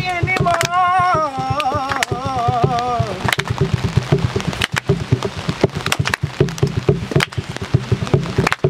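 A voice singing held, wavering notes for about the first three seconds, then irregular taps and pattering of rain on an umbrella close by.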